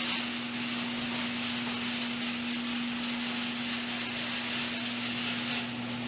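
Electric garage door opener running steadily as it lowers a sectional overhead garage door, a constant motor hum over the noise of the moving door. The door is closing automatically on the opener's timer.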